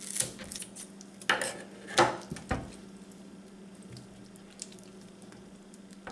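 Gutting a small bluefish by hand: wet squelching as the gills and innards are pulled out, with a few sharp clacks from kitchen shears and the wooden cutting board in the first few seconds, the loudest about two seconds in.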